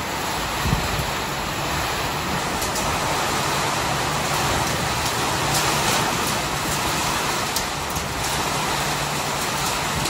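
Heavy monsoon rain driven by strong wind gusts, a steady dense rush, with one wind buffet on the microphone about a second in.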